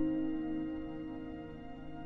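Soft background music: one held, sustained chord slowly fading away.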